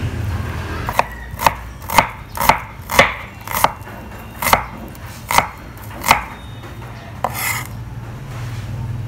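Chef's knife chopping red onion on a wooden cutting board: sharp knocks of the blade against the board, about two a second, that stop about six seconds in.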